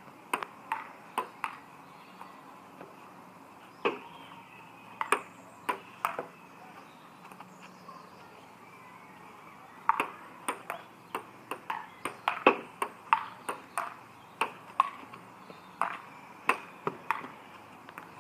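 Table tennis rallies: the plastic ball clicking back and forth off the bats and the table top in quick, alternating taps. The rallies come in runs with short pauses between them, and the longest run is in the second half.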